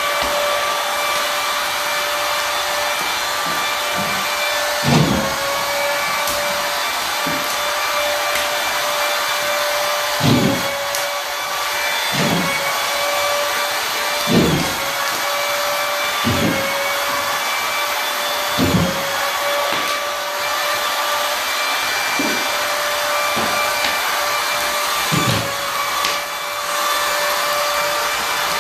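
Drywall screw gun motor running with a steady whine. Every two to four seconds it dips briefly in pitch with a low thud as a screw is driven home.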